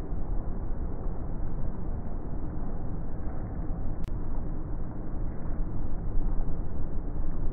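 Thunderstorm ambience: a steady low rumbling noise of thunder and rain during lightning flashes, swelling slightly near the end, with a short click about four seconds in.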